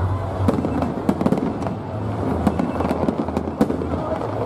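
Aerial firework shells bursting overhead: a rapid, irregular run of sharp bangs and crackles over a steady low rumble.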